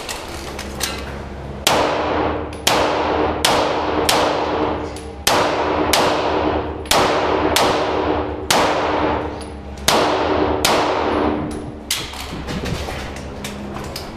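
Handgun firing about a dozen single shots, a little under a second apart, in a concrete underground range; each shot rings on in a long fading echo.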